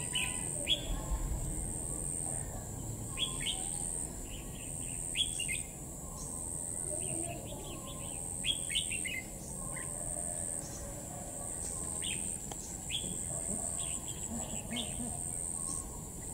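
Red-whiskered bulbul calling in short, sharp chirping phrases every second or two. Behind it runs a steady, high-pitched pulsing hum.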